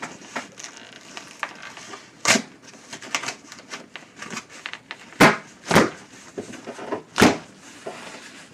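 Stapled cardboard shipping box being pried and torn open by hand: small scrapes and rustles of the cardboard, with four louder short tearing rips, one about two seconds in, two close together past five seconds and one past seven.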